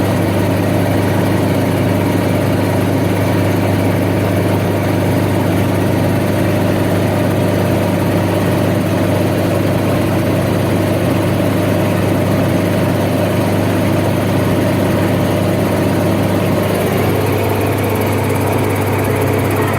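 Helicopter engine and rotor running steadily, a constant loud drone with a strong low hum. The tone shifts slightly near the end.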